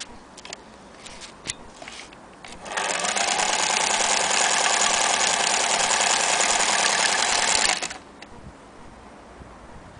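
Singer Featherweight 222K electric sewing machine: a few light clicks, then about 2.5 s in the motor spins up and the machine stitches at a steady fast speed for about five seconds before winding down and stopping.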